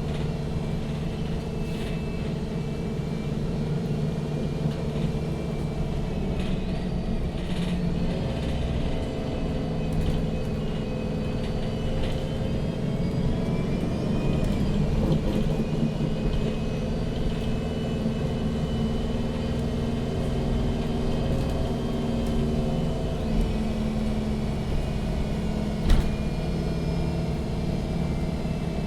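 Interior sound of a MAN NG 313 CNG articulated city bus under way: its natural-gas engine runs steadily with a low hum that rises and falls a little in pitch, with road rumble. A single sharp knock sounds near the end.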